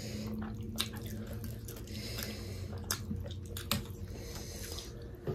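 Wet mouth sounds of people chewing juicy pork momos (dumplings): scattered soft smacks and sharp little clicks.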